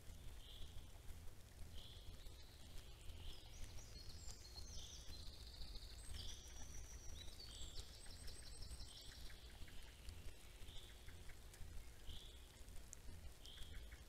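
Songbirds singing in a forest: one bird repeats a short high note about every second and a half, while another sings a fuller, trilling song for a few seconds in the middle. A faint steady low rumble runs underneath.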